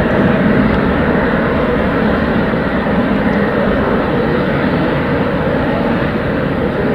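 Business jet's turbofan engines during landing: a steady, loud rumble and hiss as the jet flares, touches down and rolls out on the runway.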